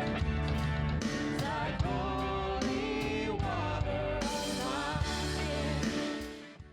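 Christian worship song with a singing voice over band accompaniment and a steady beat, fading out near the end.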